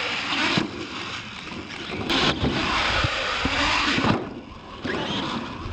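R/C monster truck running over a dirt track, its motor whirring in short rising and falling bursts as the throttle is worked, with its tires churning dirt.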